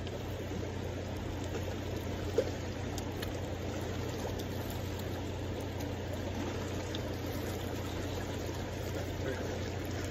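Steady rushing of fast-flowing river water, with one short knock about two seconds in.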